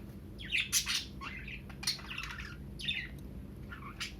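Pet budgerigars chirping and chattering in a string of short, high calls, about two a second.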